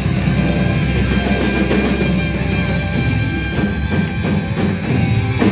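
Live rock-and-roll band playing loudly: electric guitar, drum kit and horns, with a cymbal crash near the end.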